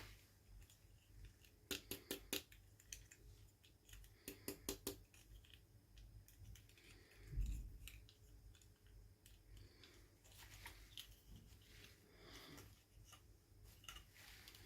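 Quiet handling of toy packaging: two quick runs of small sharp snips or clicks, four or five each, a soft thump a little past halfway, and faint scattered ticks.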